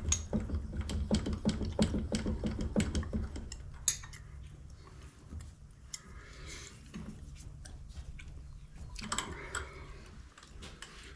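Irregular metal clicks and knocks from lathe tooling being adjusted and handled by hand, busiest in the first few seconds and again near the end, over a steady low hum.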